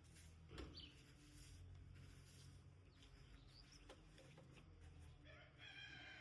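A few faint bird chirps over near silence, with a longer call near the end.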